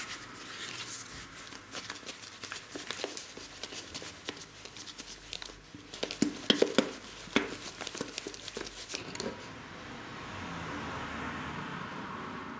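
Cake batter being shaken inside a lidded Kaiser Shake & Bake baking pan: irregular knocking and sloshing, with the loudest knocks about six to seven seconds in. The shaking stops about nine seconds in.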